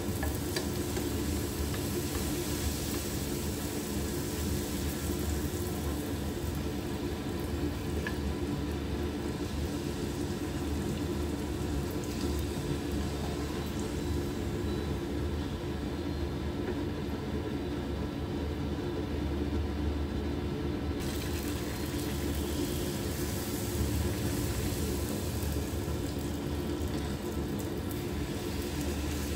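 Puri deep-frying in hot oil in a small pan: a steady sizzle and bubbling over a continuous low rumble.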